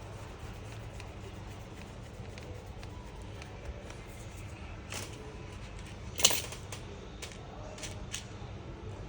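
Scattered small clicks and taps of a screwdriver and plastic parts as a laptop's cover is fitted and screwed down, the loudest click about six seconds in, over a steady low hum.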